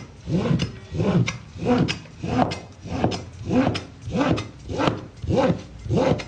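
Large cleaver drawn in rapid strokes across a block of material, shaving off thin strips with a rasping scrape, about ten strokes in a steady rhythm of roughly one every 0.6 seconds.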